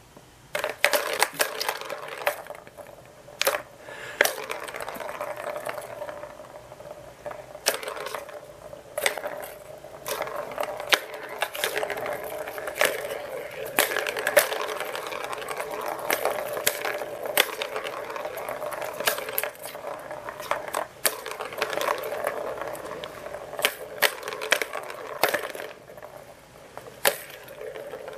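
Plastic balls rolling and rattling round the tracks of a three-tier ball-track cat toy as a cat bats at them: a continuous rolling whir broken by many sharp clicks as the balls knock against the plastic. It starts suddenly about half a second in.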